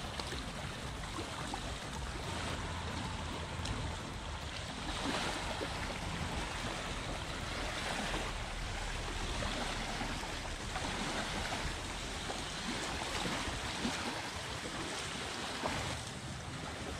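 Small waves lapping on a sandy shore, swelling every few seconds, with wind rumbling on the microphone.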